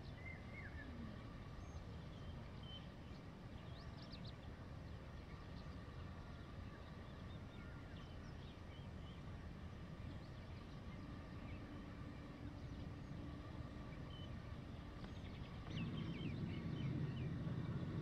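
Faint rural ambience: a few distant bird chirps, and a low steady hum that comes in about two-thirds of the way through and grows louder near the end.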